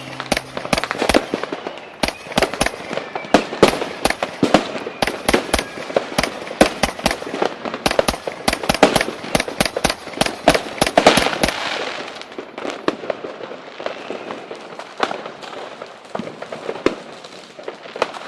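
A dense run of sharp cracks and bangs from New Year's fireworks and firecrackers, many overlapping. About twelve seconds in they thin out to scattered, fainter pops.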